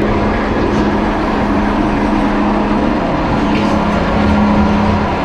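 Passenger train running along the rails: a continuous, steady rumble with a low hum through it.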